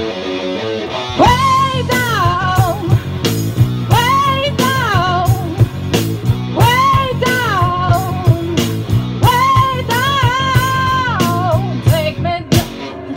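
A woman singing into a microphone over guitar accompaniment. She holds several long notes, each dropping away in pitch at its end.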